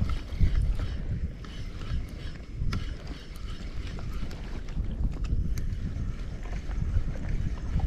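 Strong wind buffeting the microphone: a low, uneven rumble that rises and falls in gusts, with a few faint clicks.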